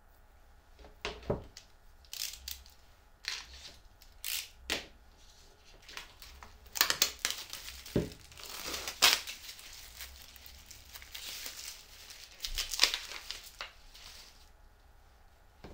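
Paper label being torn and peeled off a plastic cutting board: a series of crinkling, tearing bursts, with a single knock about eight seconds in.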